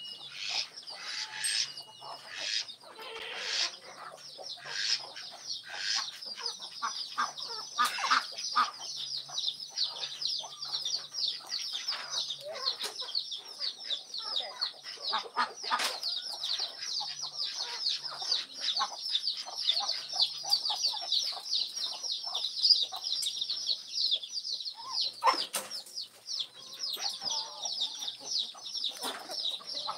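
A flock of feeding chickens clucking, over a dense, continuous run of rapid high chirping. A few sharp knocks stand out.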